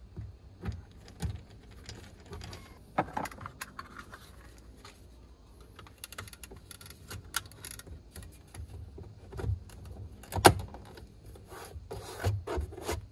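Plastic door trim of a 2010 Toyota Tundra being screwed and pressed back into place: scattered rubbing, clicks and knocks, with one sharp snap about ten seconds in.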